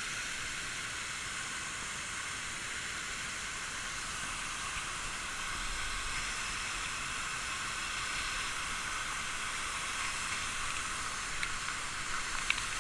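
Steady rushing of water from a creek waterfall, an even hiss. A few small clicks near the end.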